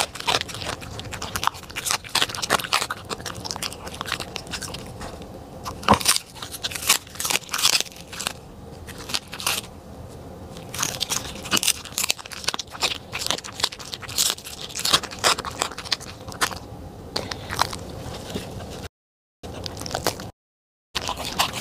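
Corgi biting and crunching through a whole roasted fish: a rapid run of sharp, crisp crunches and chewing, thinning out for a couple of seconds about halfway. The sound cuts out completely twice, briefly, near the end.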